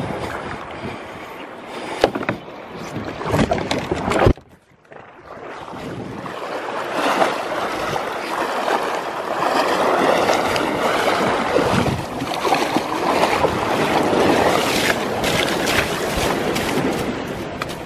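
Small surf washing and splashing against a plastic kayak's hull as it is brought in to land. There are a few sharp knocks in the first few seconds, then steady rushing, churning water from about six seconds in.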